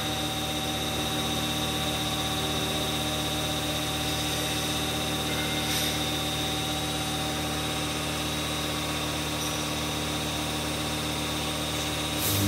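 Hydraulic power pack running steadily: an electric motor and pump humming with a constant pitch. Right near the end it gets markedly louder and the low hum strengthens, as the system comes under load.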